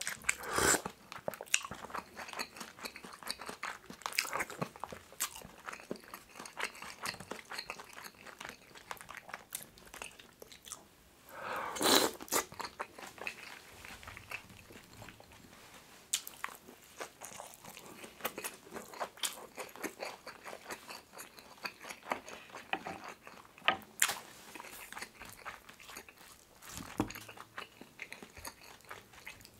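Close-miked eating sounds of pork kimchi stew with rice: sipping broth from a spoon, then chewing with wet mouth clicks and smacks, and a few louder sips or slurps.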